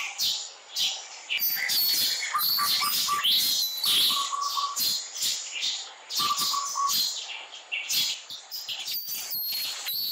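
Birds chirping: many quick, short chirps and whistled glides, with bouts of a steadier, lower-pitched call repeated every couple of seconds.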